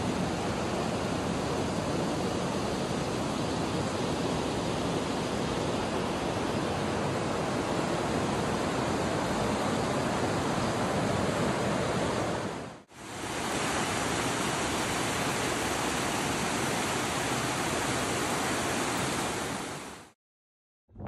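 Steady rush of a fast-flowing river close by, an even, unbroken water noise. It breaks off briefly about two-thirds of the way through, resumes, then stops abruptly just before the end.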